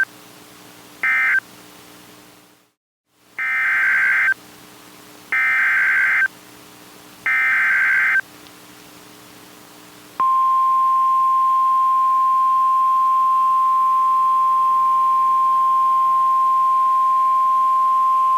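Emergency Alert System signals on NOAA Weather Radio. First comes the last short SAME end-of-message data burst, then a brief dropout. Then three one-second bursts of SAME header data tones encode the next alert, a severe thunderstorm warning, and about ten seconds in the steady single-pitch National Weather Service 1050 Hz warning alarm tone starts.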